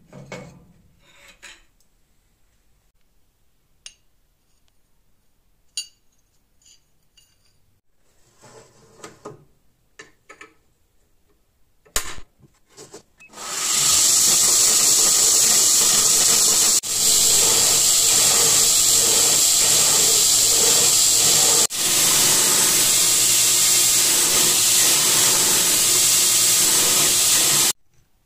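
A few faint metal clinks and knocks, then, about halfway through, the loud, steady, high hiss of a belt grinder's abrasive belt running over a large contact wheel and grinding a flat forged crucible-steel bar. The hiss breaks off for an instant twice and stops suddenly near the end.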